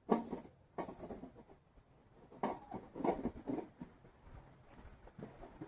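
Thin titanium panels of an ultralight packable wood stove being handled and fitted together: a few light clicks and knocks at uneven intervals, with faint scraping between.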